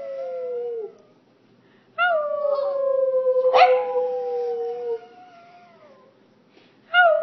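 Boston terrier howling ('singing') in long, slowly falling notes. A short howl at the start trails off, then a long one of about three seconds follows, with a sharp brief break partway through. A new howl begins near the end.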